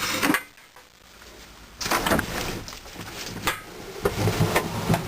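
Irregular knocks, clatter and rustling of household objects being shifted and bumped by hand. There is a brief quiet spell about half a second in, before the knocking starts.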